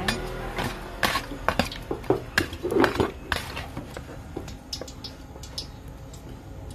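A metal spatula stirring and scooping raw river fish in a plastic bucket: irregular knocks and clinks of metal against the fish and the bucket's side, with some wet squishing. The knocks come thick for the first three seconds or so, then thin out and grow fainter.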